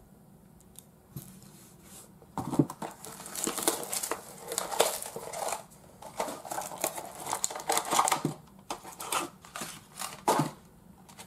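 Packaging of a collectible figure pack being torn open and crinkled by hand. It is quiet for about the first two seconds, then comes irregular rustling with sharp crackles and clicks.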